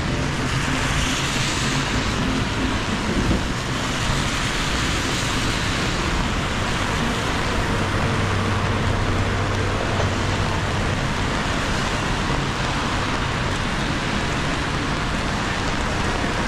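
Street traffic on a wet road in steady rain: tyres hissing on wet asphalt with rain, louder over the first few seconds. A vehicle engine adds a low hum for a few seconds in the middle.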